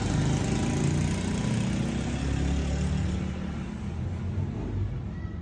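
Suzuki Cultus idling, its engine and exhaust a steady low running sound that eases off slightly over the second half.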